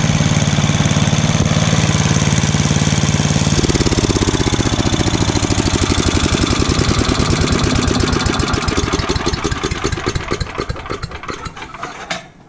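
Ten-horsepower Tecumseh HM100 single-cylinder engine on a chipper/shredder running steadily at speed. About three and a half seconds in, its note drops. It then winds down, getting quieter, and stops just before the end as it is shut off.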